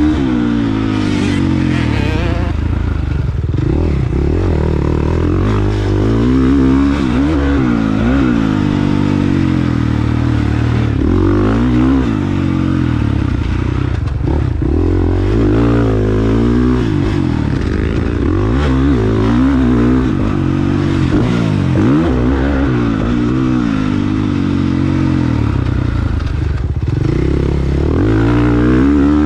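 450cc four-stroke motocross bike engine, heard up close from the bike itself, revving up and dropping off over and over as the rider works the throttle and shifts gears around the track, with some rattle and scrape.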